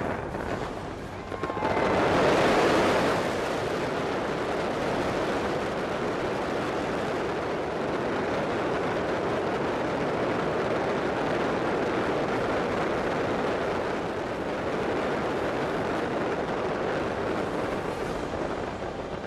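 Fireworks going off in a dense, continuous barrage of crackling bangs, loudest about two seconds in.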